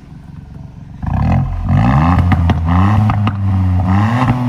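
Ford Fiesta ST Mk8's 1.5-litre turbocharged three-cylinder engine, breathing through a Milltek exhaust, idling and then blipped in several quick revs from about a second in. Sharp pops and crackles come out of the exhaust on the overrun between revs, a bit of "gunfire".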